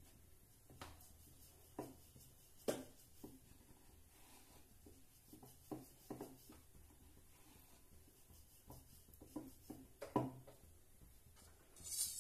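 Wooden rolling pin rolling out paratha dough on a board: faint rubbing with irregular soft knocks as the pin is pushed and lifted. Near the end, a short hissing burst as the rolled paratha goes into the hot iron kadhai.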